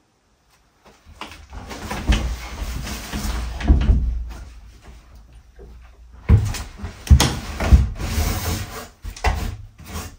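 Knocks, bumps and scraping against wood. There is a noisy stretch with a couple of heavy bumps, then a run of sharp knocks from a little past the middle.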